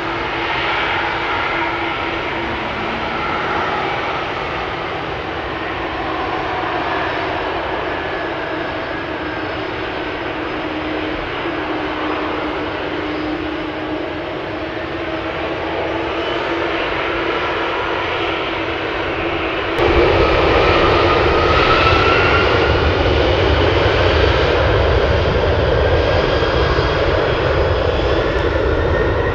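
Boeing 747-400 freighter's four jet engines running as it taxis, a steady whine with slowly gliding tones. About two-thirds of the way through the sound turns abruptly louder and deeper, and whining tones rise for a few seconds.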